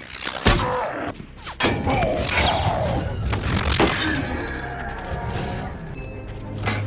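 Action-film battle sound mix: a run of sharp crashes and shattering impacts, about five in all, with falling whooshes and metallic robot mechanisms over a steady low rumble and film score.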